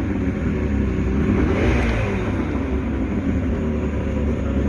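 Mercury outboard motor idling steadily at about 950 RPM, running out of the water on a hose water supply.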